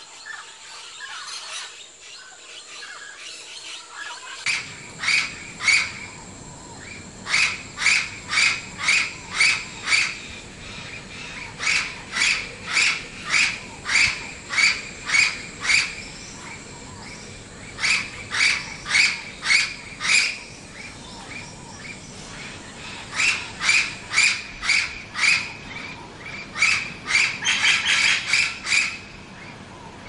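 A parrot calling in bouts of short, sharp calls repeated about twice a second, with brief pauses between bouts. The calls begin about four seconds in, after a faint start.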